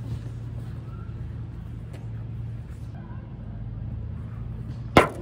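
A steady low hum of distant road traffic. Near the end comes one sharp, loud whack as the pitched plastic wiffle ball reaches the plate, striking the bat or the plastic strike-zone target.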